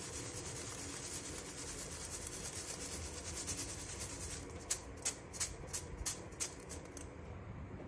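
Boora (powdered sugar) being sifted through a fine wire-mesh strainer shaken by hand over a steel bowl: a soft steady rubbing, joined about halfway by a string of light taps.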